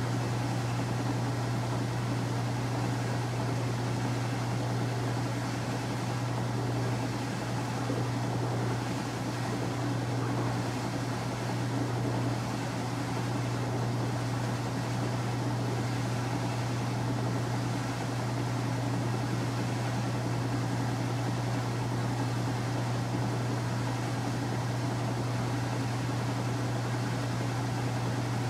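Kenmore 800 Series washing machine running with a steady low motor hum and an even whir, with no rhythm of agitation strokes.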